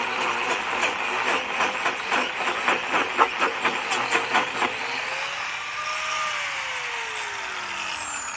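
Angle grinder with a shaping attachment grinding into the wood, chattering in quick uneven knocks, then released about five seconds in, its motor winding down with a steadily falling pitch.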